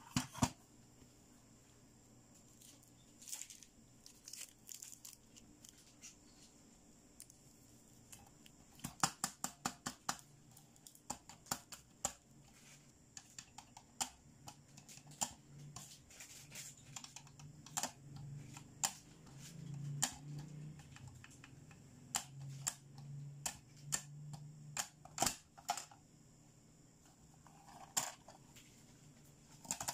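Hard plastic clicks and taps from a hippo dentist toy being handled, with a quick run of clicks about nine seconds in and scattered single clicks after it. A faint low hum sits under the middle stretch.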